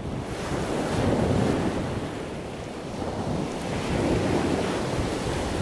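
Sea surf and wind: a steady rushing noise that swells twice, about a second in and again around four seconds.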